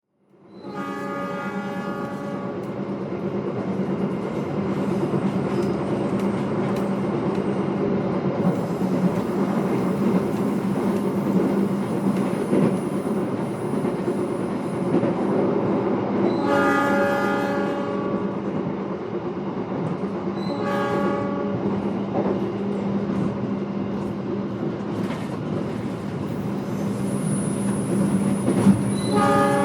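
Interior of an executive-class passenger train carriage in motion: a steady rumble with a constant low hum. A pitched, horn-like tone sounds briefly four times: near the start, twice in the middle, and again near the end.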